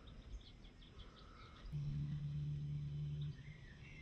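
Spinning reel whirring for about a second and a half as line runs off the spool during a cast, starting and stopping abruptly, with birds chirping.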